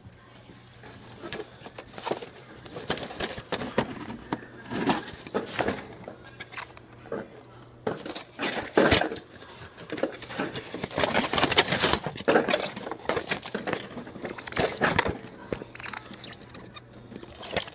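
Irregular rustling and crinkling with scattered knocks and clatter, coming in uneven bursts.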